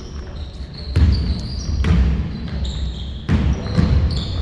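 A basketball bouncing hard on an indoor court floor: four heavy thuds, unevenly spaced, about a second in, two seconds in and twice more past three seconds, with short high squeaks between them.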